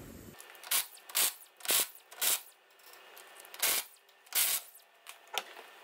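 A run of short scuffing knocks, four about half a second apart, then three more spaced out: footsteps on a concrete workshop floor and tool handling as the mechanic comes to the wheel and kneels.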